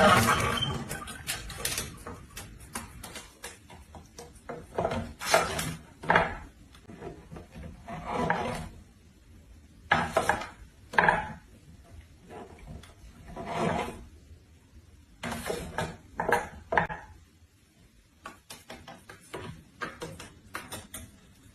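An irregular series of short scraping and rubbing sounds, like hard objects scraped against wood, with brief pauses between them.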